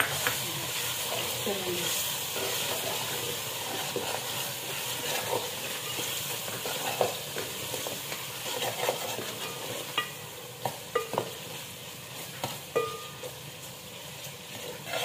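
Sliced onions and paste sizzling in hot oil in a metal pot, stirred with a metal slotted spoon that scrapes and clinks against the pot. The hiss of frying is steady, and the clinks of the spoon come sharper and more often in the second half.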